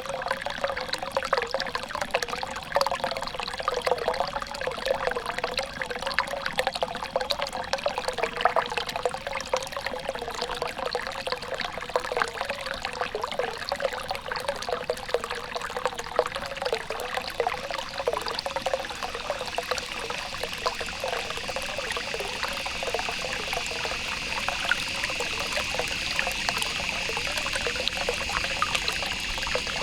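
Small stream of water trickling and gurgling over stones, a busy, bubbling flow. About two-thirds of the way through, a steady high-pitched hum joins in.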